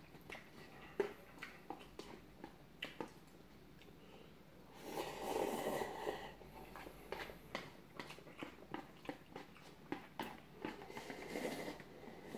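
Close-up eating sounds of cup noodles: chewing and small clicks, a long loud slurp about five seconds in, and another slurp near the end as the paper cup is tipped up to the mouth.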